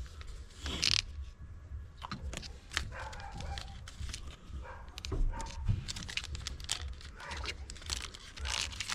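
Foil booster pack wrappers crinkling and trading cards being handled, with irregular rustles and small clicks.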